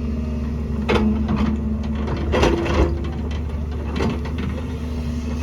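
Excavator's diesel engine running steadily, with the bucket knocking and scraping against rock: a sharp knock about a second in, a longer grinding scrape around two and a half seconds, and another knock about four seconds in.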